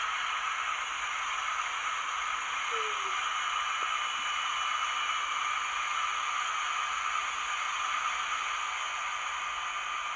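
Sound decoder of an Atlas N scale NJ Transit ALP-45DP model locomotive in electric mode playing its blower sound: a steady hissing fan noise with a faint, even whine in it.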